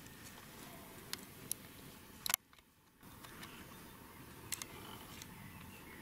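Faint steady background noise with a few short, sharp clicks scattered through it, dropping out almost to silence for about half a second near the middle.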